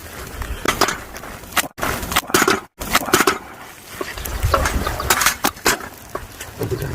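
Kimchi being stir-fried in a wok over a wood fire: irregular clatter and scraping of a utensil against the wok over a rough frying noise. The sound cuts out completely twice, about two seconds in and again a second later.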